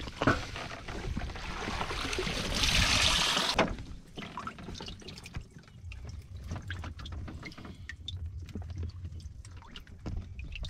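Water streaming and pouring off a cast net as it is hauled out of the lake, rising to a loud rush that cuts off sharply a little under four seconds in. Then faint drips and small splashes from bait fish in a tub of water.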